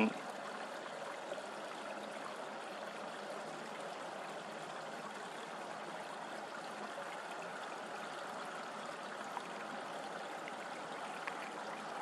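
Steady, even rushing background noise with a couple of faint clicks late on.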